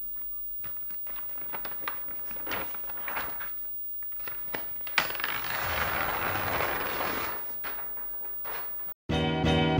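Paper rustling and crinkling as a wall calendar's page is lifted and flipped over, with scattered small rustles, a sharp snap about five seconds in, then a couple of seconds of steady rubbing of paper against paper and the wall. Near the end the sound cuts off and guitar music starts.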